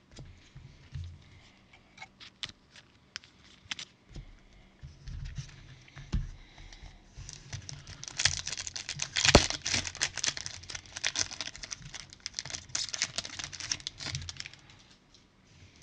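Foil trading-card pack wrapper being torn open by gloved hands: scattered light clicks and rustles at first, then a dense run of crinkling and crackling from about halfway through, sharpest about nine seconds in.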